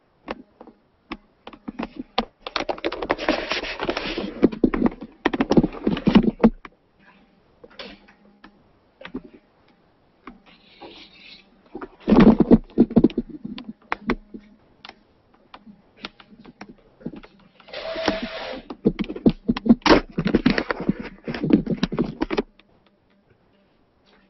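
Handling noise on a microphone as the camera is picked up and carried about: three loud stretches of rustling and scraping, with scattered clicks and knocks between them.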